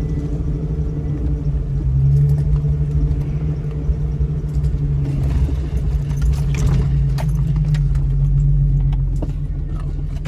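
2000 Jeep Cherokee's engine running steadily at low speed over a rough dirt trail, with scattered light clicks and rattles, heaviest a little past the middle.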